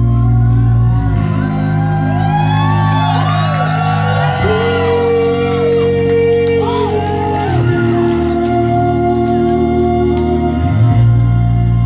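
Live band playing slow held electric guitar and bass chords that change every few seconds. High wailing voices glide up and down over the chords through the middle.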